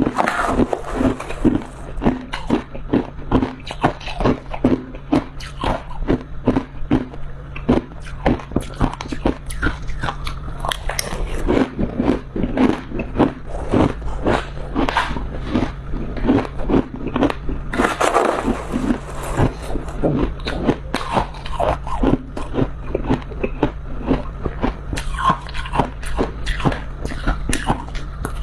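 Crunchy chunk of freezer frost being bitten and chewed close to the microphone: a dense run of brittle icy crunches, several a second.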